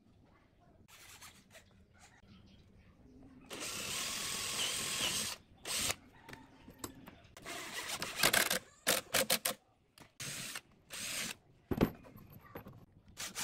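Cordless drill running into pine ladder stock, first in one steady run of about two seconds, then in several short bursts, with handling clicks of wood and tools.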